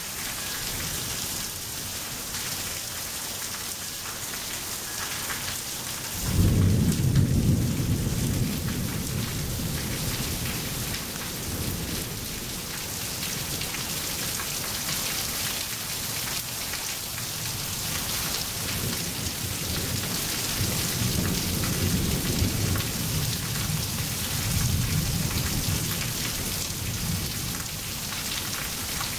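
Steady rain falling on pavement. About six seconds in, a sudden clap of thunder rolls on for several seconds, and weaker rumbles of thunder come again later.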